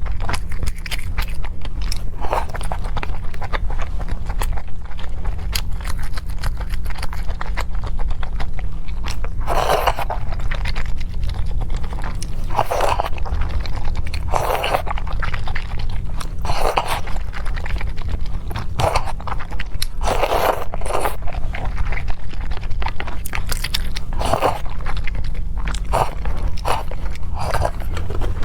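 Close-miked eating sounds: biting and chewing food, with crunches and small clicks every second or two over a steady low hum.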